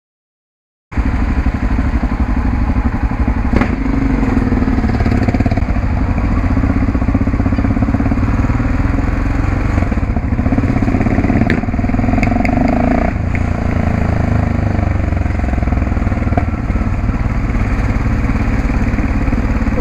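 Yamaha XT660X's single-cylinder four-stroke engine and exhaust running as the bike is ridden, heard from the rider's helmet camera. The sound starts suddenly about a second in and stays steady.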